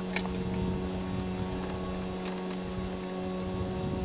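Boat motor running with a steady, even hum. One sharp click comes just after the start, and a few fainter ticks follow.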